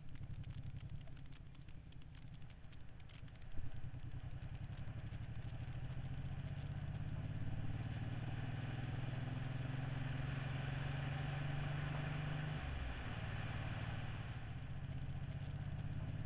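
Motorcycle engine running under way, a steady pulsing note, with a single knock about three and a half seconds in. The engine note drops near the end as the bike slows.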